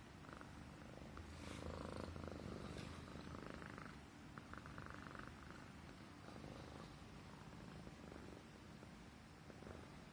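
Himalayan Persian cat purring, a steady low hum that is a little louder for the first few seconds, with light rustling now and then in the first half.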